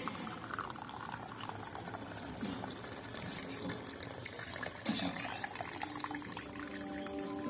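Tea pouring in a thin stream into a ceramic cup, filling it.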